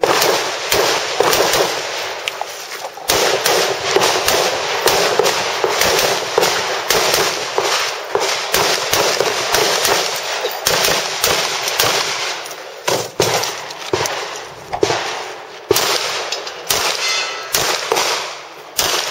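Handgun fired in rapid strings, several sharp shots a second, with brief pauses between strings.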